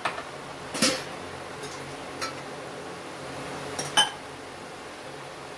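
Stainless steel kitchen vessels clinking and knocking as they are handled: a few separate knocks, the loudest about four seconds in, with a short metallic ring.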